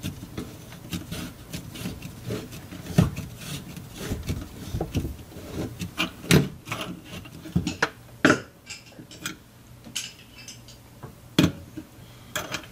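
Irregular metal clicks, knocks and rubbing as a hand grips and twists the chrome pop-up drain tailpiece and its brass nut, working a stuck threaded joint loose. A few sharper knocks stand out among the lighter clicking.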